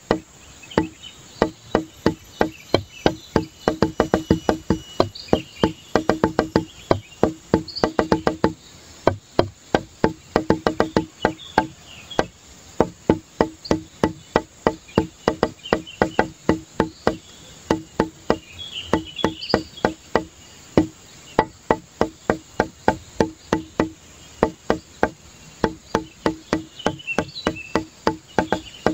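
Background instrumental music: a quick, even run of short, wooden-sounding struck notes, several a second, with faint high chirps now and then.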